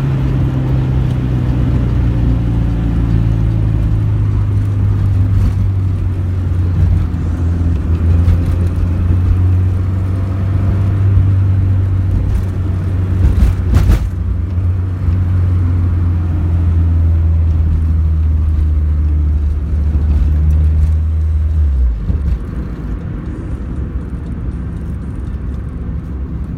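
Car engine running with a steady low drone, with a sharp knock about 14 seconds in. The engine note stops about 22 seconds in, leaving a quieter rumble.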